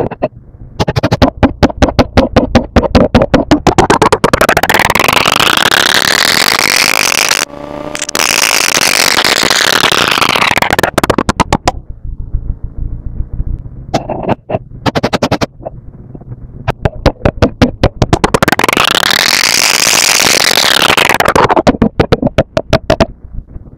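Thick acrylic paint being stirred and squished with a metal palette knife: rapid, sticky squelching strokes, twice running into a long stretch of steady mixing whose hiss sweeps up and back down.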